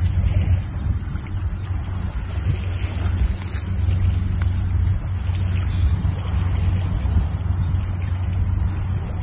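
Insects buzzing: a steady, high-pitched, fast-pulsing drone, over a steady low rumble.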